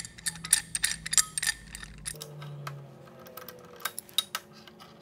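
Steel C-clamp being set over a steel block and tube on a steel welding table and its screw turned down: a run of light metal clicks and clinks, thick at first and thinning out after about two seconds, with a few more near the end.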